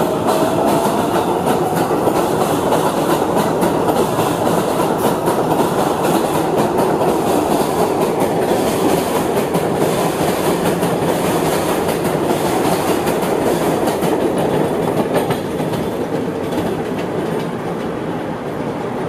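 New York train pulling away from a station: a steady clatter of wheels over the rails, with a faint whine. The noise eases off a little over the last few seconds.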